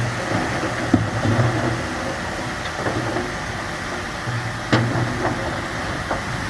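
Bulldozer engine running, its low hum rising and falling, with two sharp knocks: one about a second in and a louder one near the middle.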